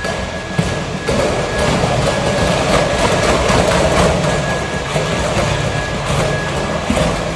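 Swiss-Mile wheeled-legged robot driving, with a rattling, rolling mechanical noise and a steady high whine from its drive, getting louder about a second in. Background music runs beneath.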